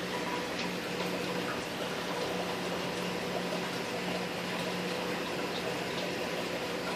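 Steady background hiss with a low, even hum running under it, and no other events.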